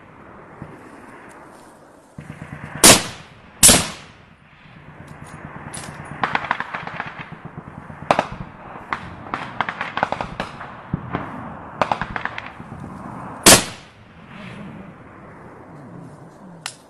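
Small-arms gunfire: two loud, sharp shots close together about three seconds in, then a long stretch of quicker, quieter shots in rapid runs of automatic fire, and another loud shot near the end.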